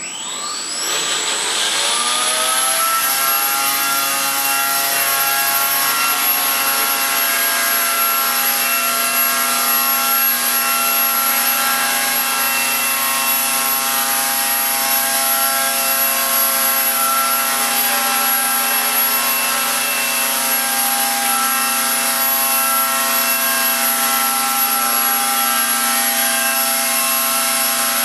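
Walkera M120D01 micro RC helicopter spooling up, its electric motor whine rising in pitch over about two seconds, then hovering with a steady high whine and rotor hiss.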